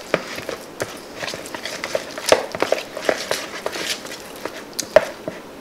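Metal fork stirring thick, melted mozzarella and cream cheese in a plastic mixing bowl: irregular clicks and scrapes of the fork against the bowl.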